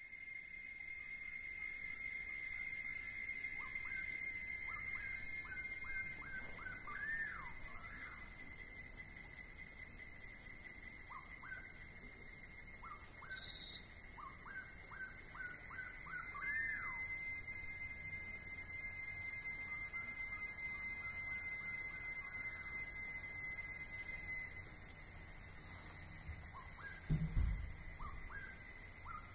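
A steady, high insect chorus with birds chirping over it in short runs of rising-and-falling calls. It swells in over the first few seconds.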